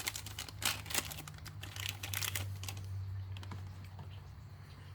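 Light clicks and rustling from handling a new cartridge oil filter and its gasket, busiest in the first couple of seconds and then sparser.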